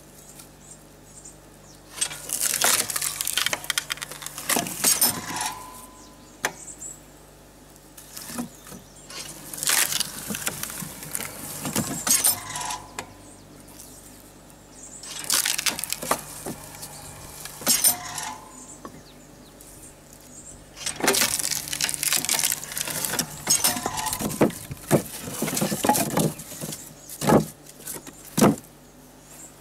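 Firewood logs being split in a water-hydraulic log splitter: four long bursts of wood cracking and splintering with clattering pieces and short creaks. The last burst ends in two sharp cracks.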